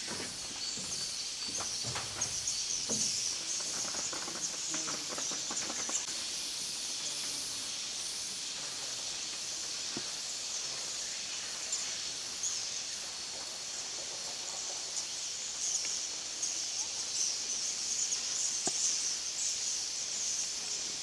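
Tropical rainforest ambience: a steady, high-pitched chorus of insects and birds, with a few faint knocks.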